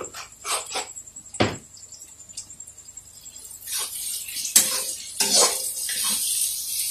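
A metal ladle stirring vegetables in a steel kadhai on a gas stove, knocking and scraping against the pan, with a frying hiss that builds about halfway through. A few light clicks come first, from the salt jar and spoon.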